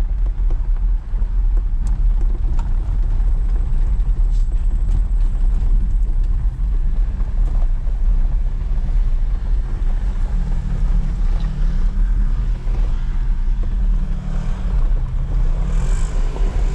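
Off-road vehicle's engine running under way, a steady low rumble; the engine note becomes more pronounced about ten seconds in.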